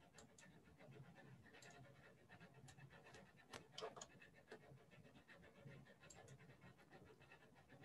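Near silence: faint room tone with a few soft, scattered clicks of a computer mouse and keyboard, a small cluster of them about halfway through.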